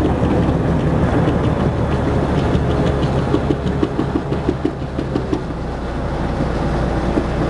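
Tracked armoured infantry fighting vehicle driving along a road, its diesel engine running steadily under a broad noisy rumble. A quick run of clicking or rattling, about five a second, comes through in the middle.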